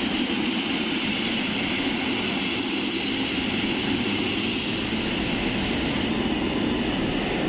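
Container freight train passing close by: the flat wagons roll past with a steady rumble of wheels on the rails.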